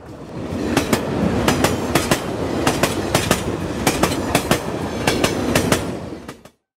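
Freight train of car-carrier wagons rolling past, its wheels clicking over rail joints two or three times a second above a steady rumble. The sound fades out near the end.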